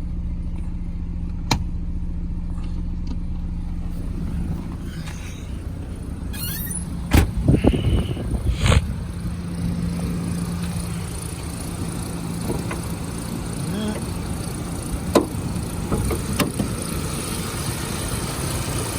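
2004 Audi A4 B6 engine idling steadily, with a few sharp clicks and knocks and a louder run of knocks about seven to nine seconds in.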